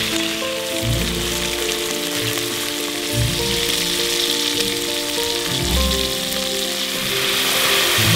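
Chicken thigh pieces and shredded ginger frying in a stainless pot: a steady sizzle that grows louder near the end. Background music with held notes and a few slow bass notes plays over it.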